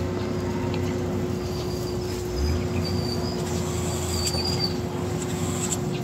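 Heavy road-construction machine, a motor grader, running with a steady low engine rumble and a constant hum. A bird chirps a few times in the middle.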